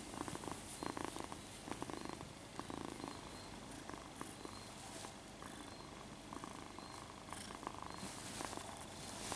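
Young kitten purring in bouts with short pauses, close to the microphone.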